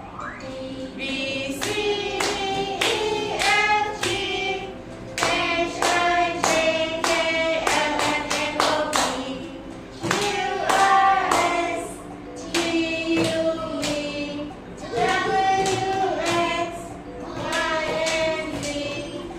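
A simple children's song is sung, with hands clapping along in a steady beat of about two claps a second.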